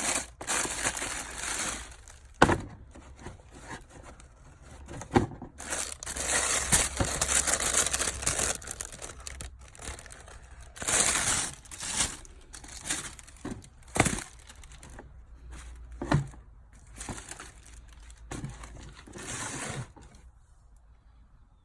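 Packaging crinkling and rustling in uneven bursts as a sneaker box is unpacked, with a few sharp knocks among them. It stops about 20 seconds in.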